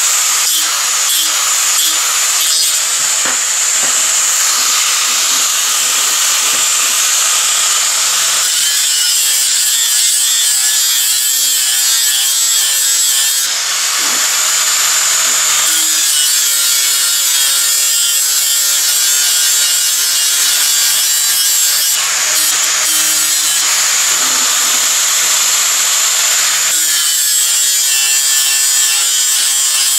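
Handheld angle grinder running continuously with an abrasive disc, grinding weld remnants off a steel flat bar. Its steady high whine changes tone several times as the disc is pressed into the steel and eased off.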